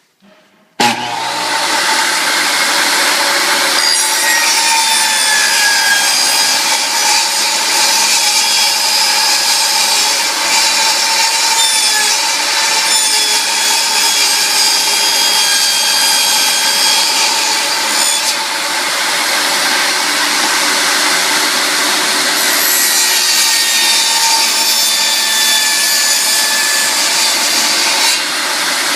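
Power saw cutting the vent opening in a laminate floor plank: it starts suddenly about a second in and runs steadily, its motor whine wavering in pitch as it bites.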